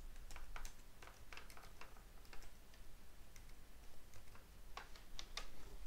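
Computer keyboard keys clicking one at a time at an uneven pace as an IP address is typed. The clicks are faint.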